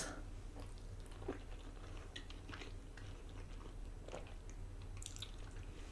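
Faint close-up chewing: soft scattered mouth clicks and wet smacks over a steady low hum.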